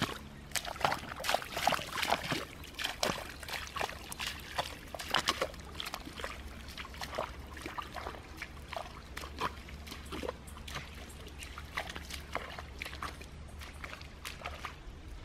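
Bare feet squelching and splashing through wet mud and shallow water in irregular steps, growing fainter as the walker moves away.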